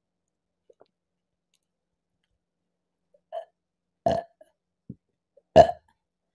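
A woman burping after gulping a carbonated apple drink (Appy Fizz): two loud, short burps about a second and a half apart, the second louder, with a softer short sound just before the first.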